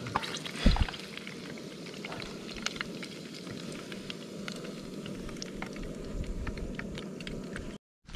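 Panko-breaded perch pieces deep-frying in oil in a camp pot: a steady sizzle dotted with many small pops and crackles. A single louder knock comes about 0.7 s in, and the sound breaks off briefly near the end.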